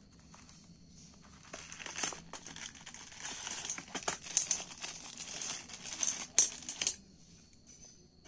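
Clear plastic packaging around a stainless steel door hinge crinkling and crackling as it is unwrapped and handled, in uneven bursts from about a second and a half in until about seven seconds in.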